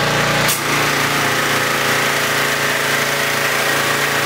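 Gasoline pressure washer engine running steadily under load while the wand sprays water, with a hiss over the engine note; the note shifts briefly about half a second in.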